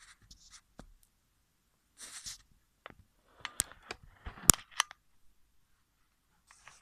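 Handling noises: a short rustle, then a cluster of sharp clicks and knocks with a single loudest knock about four and a half seconds in.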